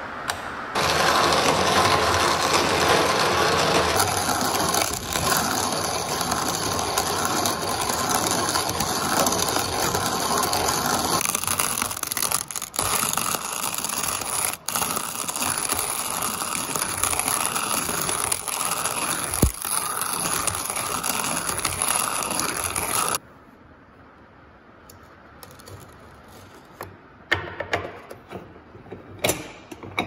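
Antique hand-cranked coffee grinder grinding roasted coffee beans in its steel burr: a steady, loud grinding rasp that stops suddenly about three quarters of the way through. A few light knocks follow near the end.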